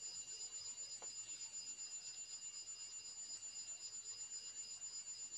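A faint, steady, high-pitched whine made of several pure tones, with one soft click about a second in.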